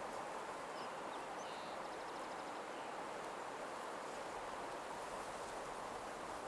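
Steady soft nature ambience, an even rustling hiss, with a few faint bird chirps and a short trill in the first couple of seconds.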